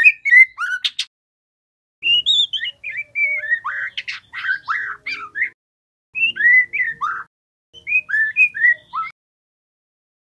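Juvenile white-rumped shama singing in short phrases of rising and falling whistles and chattering notes, with a few sharp clicks about a second in. The song comes in four bursts broken by brief pauses.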